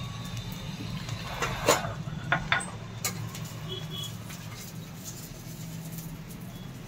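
A steel spoon knocks and clinks against a frying pan a few times, the sharpest knocks around two seconds in, over a steady low hum.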